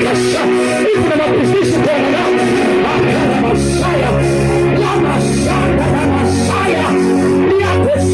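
Loud music led by guitar over a steady bass.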